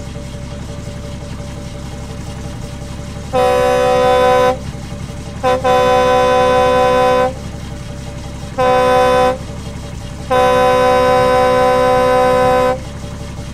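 Truck air horn sounded in four blasts, the last one the longest, over a steady low diesel engine idle.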